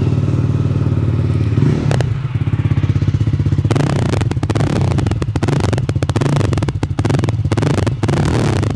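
Jawa 42 Bobber's single-cylinder engine idling through an aftermarket Venom exhaust, with a steady, even, fast exhaust beat. About four seconds in the exhaust note turns harsher and crackly.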